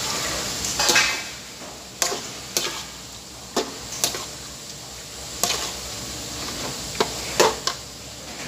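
Metal spoon knocking and scraping against an aluminium wok while stirring chicken pieces, with about eight sharp clinks over a steady hiss of the cooking.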